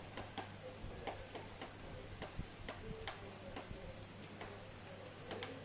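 Light rain: scattered, irregular raindrop ticks landing close by, over a low steady hum.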